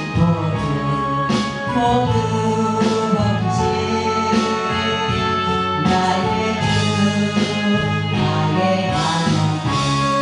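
Gospel praise song: a singing voice over steady instrumental accompaniment.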